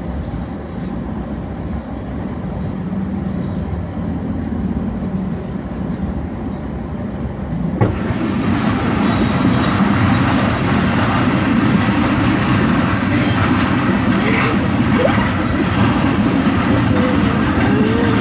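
A freight train's cars, covered hoppers and flatcars, rolling past close by with a steady rumble of wheels on the rails. About eight seconds in there is a sharp knock, after which the rumble is louder and brighter.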